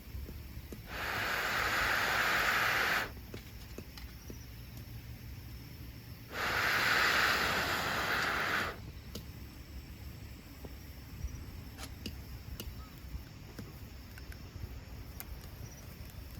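Two bursts of steady hissing, each about two seconds long, that start and stop suddenly, with faint scattered ticks in between.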